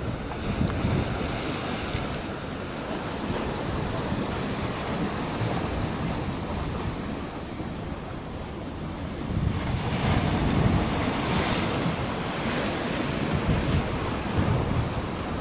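Wind buffeting the microphone over the wash of sea waves, a steady rushing noise that swells louder about ten seconds in and again near the end.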